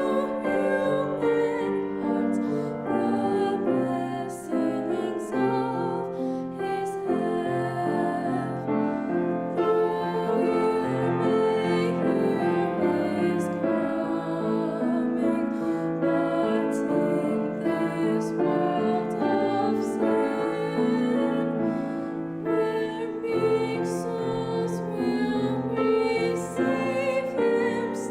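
High school choir singing with piano accompaniment.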